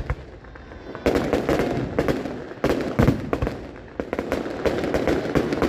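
New Year aerial fireworks going off: clusters of sharp bangs and crackles, each followed by a rolling rumble, starting about a second in, again about two and a half seconds in, and once more near the end.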